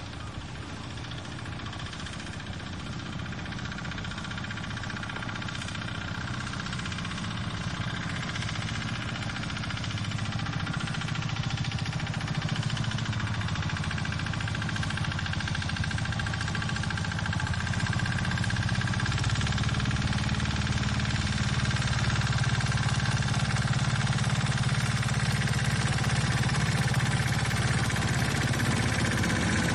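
Small engine of a two-wheel walking tractor chugging steadily, growing louder as it approaches.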